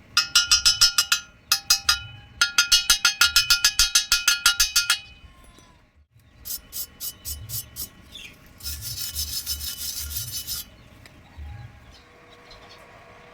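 Rapid rhythmic metal-on-metal scraping strokes, each with a ringing tone, in two quick runs of about seven or eight strokes a second. After a short pause come a few slower strokes and then a continuous scraping stretch lasting about two seconds.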